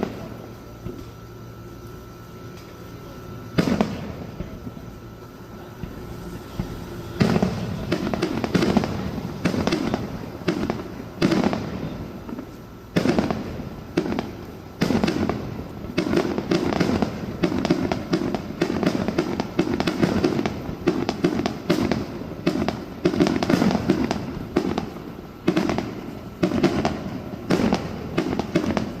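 Aerial fireworks exploding. A single bang comes a few seconds in, then from about seven seconds a rapid, continuous barrage of booms and crackles follows, several bursts a second.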